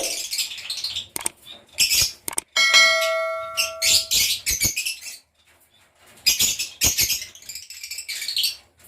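Lovebirds chirping and squawking in shrill, repeated bursts. About three seconds in, a metallic bell-like ring sounds and holds for over a second.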